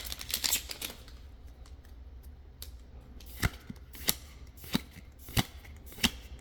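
Trading cards being flipped through one at a time, each giving a sharp snap about every two-thirds of a second, after a brief crinkle of the foil booster-pack wrapper at the start.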